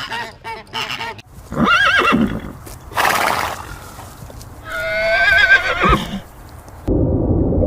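Horse neighing: a short call, a brief snort, then a long whinny that quavers in pitch. Rapid honking calls fill the first second, and a steady low rumbling noise cuts in near the end.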